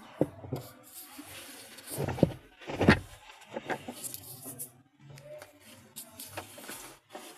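Clicks and knocks of hand tools and parts being handled while a washing machine gearbox is reassembled, with two louder knocks about two and three seconds in.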